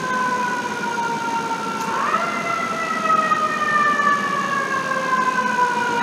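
FDNY fire truck siren approaching: a wailing tone that slides slowly down, jumps back up quickly about two seconds in, then slides slowly down again, growing gradually louder.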